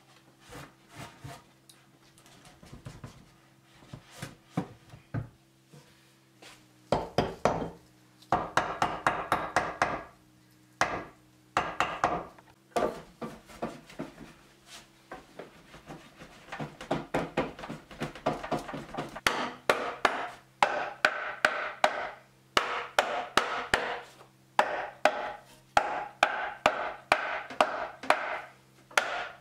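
Rapid wooden knocking and clattering as timber stretchers (nuki beams) are worked and knocked into the mortises of the bench legs, several hollow knocks a second in long runs after a quieter start.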